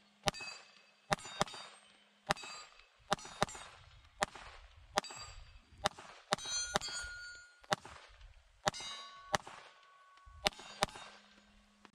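A Glock 19 Gen 5 9mm pistol fires a string of about seventeen shots at an unhurried, uneven pace of one or two a second. Many shots are followed by a short metallic ring.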